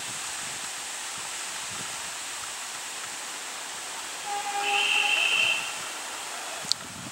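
Diesel locomotive's air horn sounding one blast of about a second and a half, several tones at once, over a steady background noise. A brief sharp click follows near the end.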